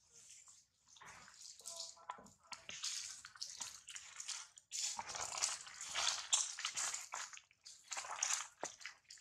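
Dry leaf litter and undergrowth rustling and crackling in irregular bursts as macaques move and forage through it.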